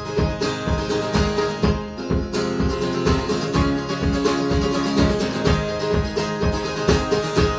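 Live band music in an instrumental break with no singing: strummed string instruments playing sustained chords over a steady beat of about three low hits a second.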